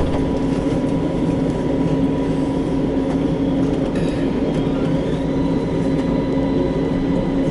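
Istanbul T1 tram heard from inside the car as it pulls away from a stop: a steady low rumble of the running gear and hum of the traction equipment, with a faint whine that rises about halfway through as it starts to gather speed.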